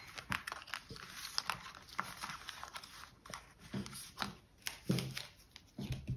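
Cards being handled on a table: scattered light clicks and short rustles, with a few dull knocks about four to five seconds in.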